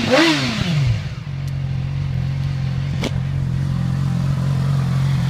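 2007 Yamaha R6's inline-four engine on its stock exhaust: a rev that rises and falls back, then settling into a steady idle about a second in. One click near the three-second mark.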